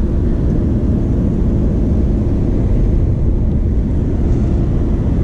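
Steady low engine rumble with a constant hum on top, the sound of motor traffic.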